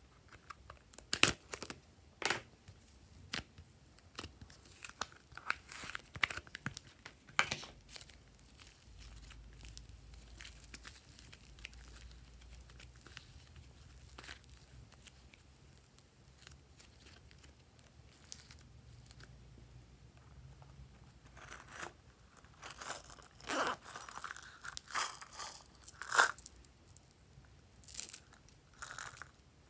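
A plastic slime container is handled and opened with a few sharp clicks. Then thick fluffy slime is stretched, pulled and folded by hand, with soft tearing and crackling sounds that grow louder and more frequent in the last several seconds.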